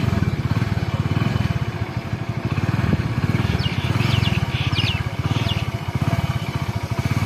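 Motorcycle engine running at low speed, a steady rapid putter that dips and swells slightly as the rider eases the throttle. A few short high chirps come about halfway through.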